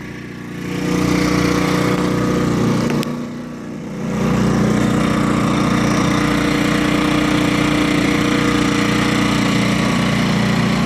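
Powerhorse 2000-watt inverter generator running in economy mode. Its engine sound drops and comes back up twice, then holds steady and louder from about four seconds in. The engine throttles up as the load from the tire warmers plugged into it switches on and off.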